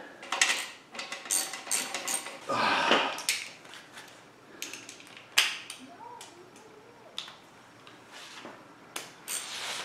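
Metal hand tools clinking and knocking as a wrench works the clamp joining the catalytic converter to the resonator on a KTM 390 Adventure's exhaust. The clicks come thick for the first few seconds, then thin out to scattered taps with one sharp click about five seconds in.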